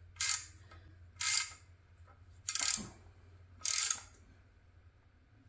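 A 7/8 wrench ratcheting on the expander nut of a cam bearing tool, four short rasping strokes about a second apart, tightening the collet so it grips the worn rear cam bearing for removal.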